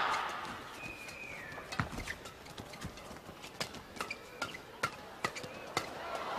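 Badminton doubles rally: sharp, irregular racket strikes on the shuttlecock mixed with players' footwork on the court, and a brief shoe squeak about a second in. Crowd noise fades away at the start and swells again near the end.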